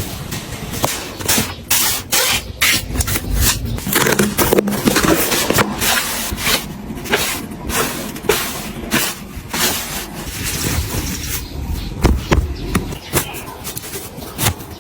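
Household items being handled and set down while organizing: a busy run of knocks, clacks and scrapes of containers and objects.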